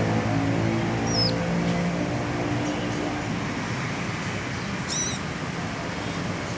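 A few short, high chirps from a small sunbird, one about a second in and another near five seconds, over a steady background of road traffic; a low engine hum fades out in the first few seconds.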